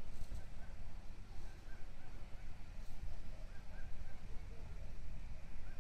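Faint, evenly repeated short warning tones from a railway level-crossing signal, sounding while the barriers are down for an approaching train, over a steady low rumble of wind on the microphone.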